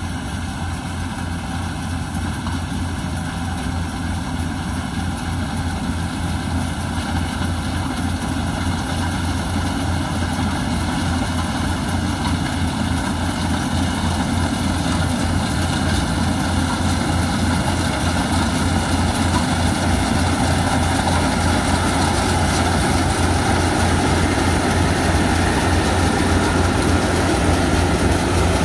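Yanmar AW70V rice combine harvester's engine and machinery running steadily as it harvests, growing louder as it comes closer.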